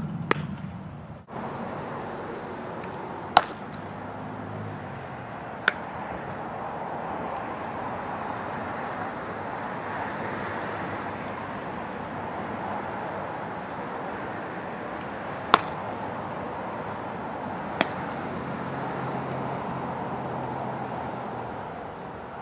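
Softball pitches smacking into a catcher's mitt with sharp single pops. One comes just after the start, and loud ones come about three and fifteen seconds in. Each of those two is followed about two seconds later by a fainter pop, over steady background noise.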